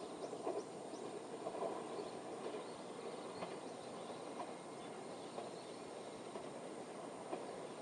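Faint rural outdoor ambience: a steady high insect drone with a few soft chirps and ticks scattered through it.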